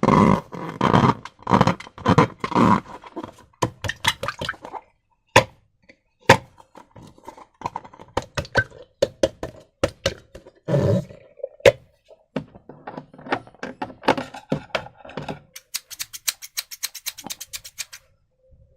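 Slime being squeezed and pressed by hand: wet squelching in irregular bursts, with sharp clicks, and a quick run of small crackling pops near the end.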